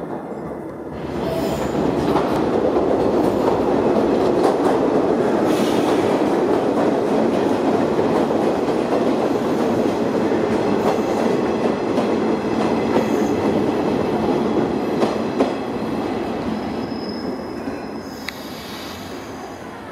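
A 115-series electric multiple unit pulling into a station: the rumble of its wheels on the rails with scattered clicks, loud as the cars pass close by and easing off as the train slows to a stop. A brief high squeal comes near the end.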